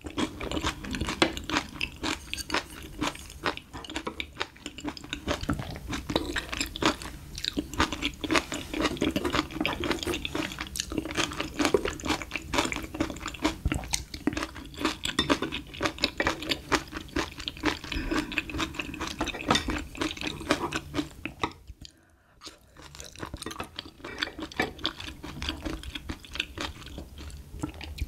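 Close-miked chewing of spicy stir-fried small octopus: a dense run of mouth clicks and smacks, with a short lull near the end.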